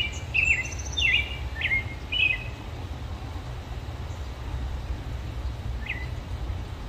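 Bird chirping outdoors: a quick run of short chirps in the first couple of seconds, then a single chirp near the end, over a steady low background rumble.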